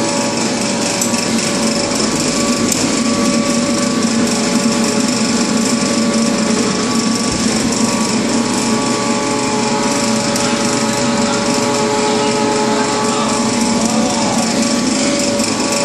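Drinking-straw production machine running: a loud, even mechanical clatter with several steady hums underneath, unbroken throughout.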